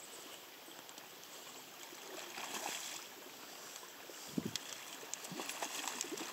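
River current running and lapping around a drifting raft, with a couple of light knocks about four and a half seconds in. Near the end a hooked coho salmon splashes at the surface.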